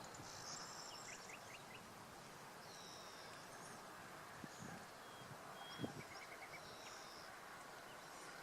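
Faint songbird calls and chirps, several short high phrases and a brief rapid trill, over a steady hiss of outdoor background noise.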